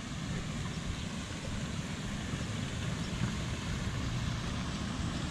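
Wind buffeting the microphone: an uneven low rumble with a steady hiss above it.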